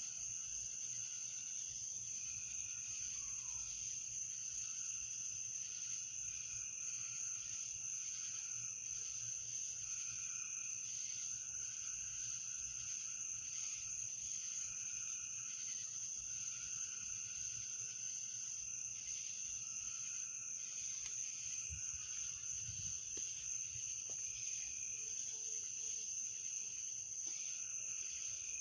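Night chorus of crickets, a loud steady high trill, over a lower insect or frog chorus that swells and fades every second or two.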